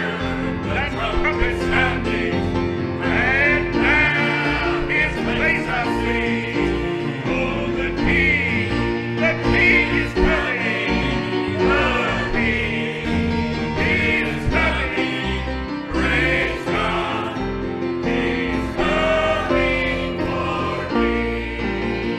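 Gospel music: voices singing with vibrato over a steady instrumental accompaniment.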